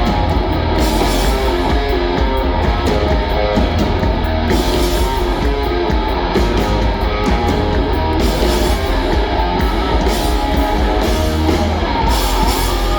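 Rock band playing live at full volume: distorted electric guitar over bass and drum kit, a heavy-metal style riff.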